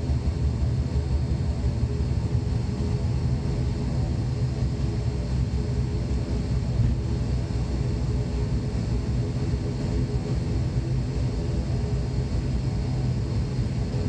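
ATR 72-600's Pratt & Whitney Canada PW127-series turboprop engine and propeller running steadily, a low, even drone with a propeller hum, heard from inside the passenger cabin.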